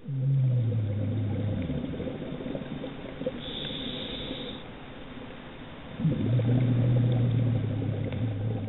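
Underwater recording of a scuba diver breathing through a regulator: a low rumble of exhaled bubbles for about two seconds, a short hiss of inhalation in the middle, then a second exhalation rumble starting about six seconds in.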